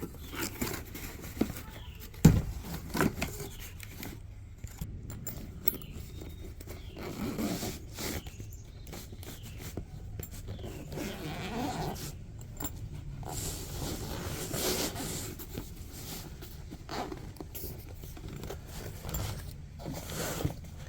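Unboxing handling noises: the zipper of a tool-kit contractor bag being opened, with rustling of packaging and light knocks of the tool and parts being taken out, the sharpest knock about two seconds in.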